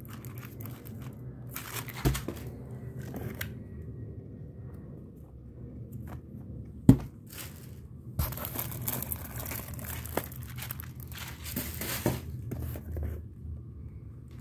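Packaging rustling and crinkling as items are unpacked by hand, in two main stretches, with a sharp knock about seven seconds in, the loudest sound.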